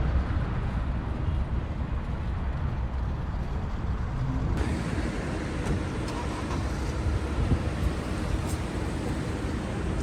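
Steady street traffic noise, a low rumble of passing road vehicles, turning brighter about halfway through.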